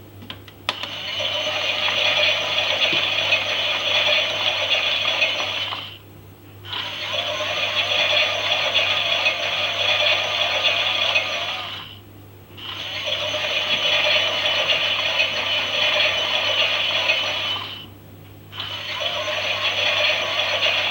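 Toy Klein Miele washing machine's small motor turning the drum with a plastic rattle, running about five seconds at a time with short stops between, four runs in all. A click comes just before the first run.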